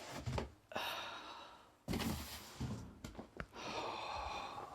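A man breathing out audibly close to the microphone, two long breathy sighs about a second each, with a few dull low knocks between them.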